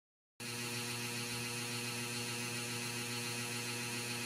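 Steady electrical mains hum with a faint hiss, starting suddenly about half a second in; no kitten calls stand out.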